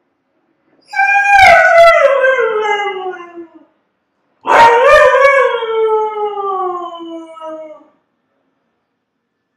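Husky howling: two long howls, each starting high and sliding steadily down in pitch, the first about a second in and the second after a short pause.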